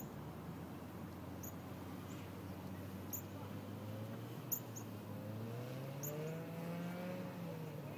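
A car engine humming steadily, rising in pitch about five seconds in as it speeds up and easing back down near the end. Faint sharp clicks come about every second and a half.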